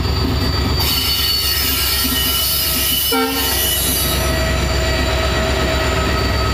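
EMD WDG-4D diesel locomotive's two-stroke engine running notched up as it hauls a heavily loaded freight rake away, passing close by. Steady high-pitched whining tones sit over the low engine throb, and a brief pitched tone sounds about three seconds in.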